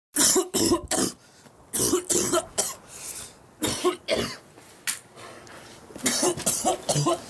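A man coughing repeatedly, about a dozen coughs in fits of two or three with short pauses between them.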